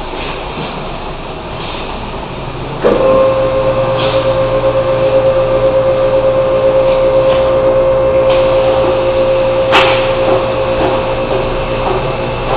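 A machine starts abruptly about three seconds in and runs on with a steady whine over a low hum. There is a sharp click near the end.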